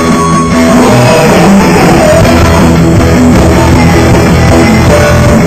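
Rock band playing loud, with guitar to the fore over bass and drums; the low end fills out about a second in.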